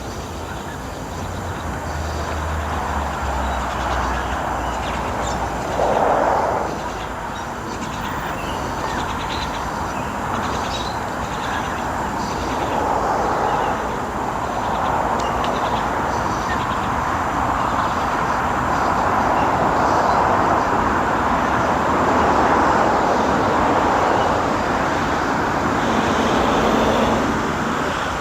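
Road traffic going by: a steady rush of tyres and engines that swells and eases, with a low engine rumble in the first few seconds and a louder vehicle passing about six seconds in.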